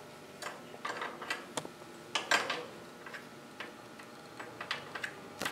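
Irregular small metallic clicks and taps of a spark plug and socket wrench being handled as the new plug is fitted into a small engine's plug hole, with the loudest click a little over two seconds in.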